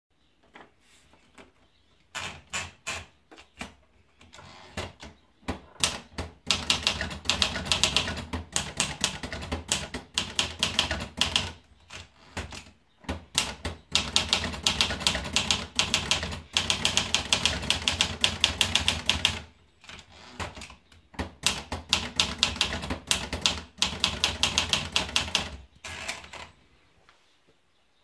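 PMC Elite 44 portable manual typewriter: a few scattered clicks at first, then rapid key strikes in long runs, with two short pauses between runs. The typing stops about a second before the end.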